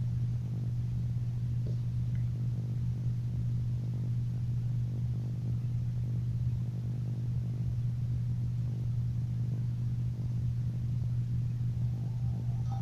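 Steady low hum with faint evenly spaced overtones, unchanging throughout; no speech or music.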